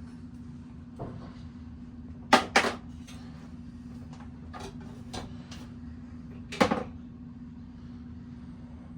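Sharp knocks and clinks of metal bicycle parts being handled while a bearing assembly is taken apart. The loudest are a quick double knock about two and a half seconds in and another near the end, with lighter clicks between them and a steady low hum underneath.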